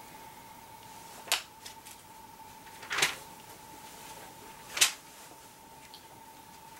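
A newspaper being handled and opened, three short crisp rustles about one and a half seconds apart, over a faint steady high hum.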